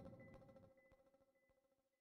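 Near silence: the last faint tail of background music fades out in the first moments.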